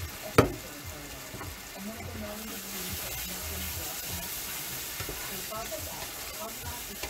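Onions sizzling in a pan on the stove while being stirred, the sizzle growing a little louder about two and a half seconds in. A single sharp knock, like a utensil or pan striking, comes about half a second in.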